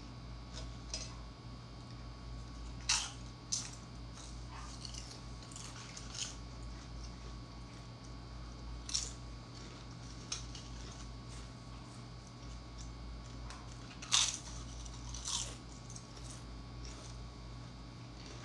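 Tortilla chips being chewed, with scattered sharp crunches, the loudest about two-thirds of the way through, and the light clatter of chips picked up from a plate.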